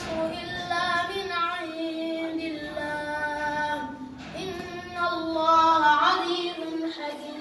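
A boy singing alone in a high voice, long held and wavering notes in drawn-out phrases, with a short pause about four seconds in.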